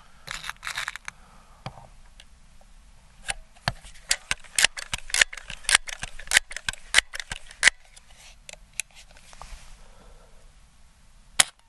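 Crosman 1322 .22 multi-pump pneumatic pistol being worked and charged to six pumps: a run of crisp metallic clicks and clacks from the bolt and pump lever. It is then fired once, a single sharp shot just before the end and the loudest sound here.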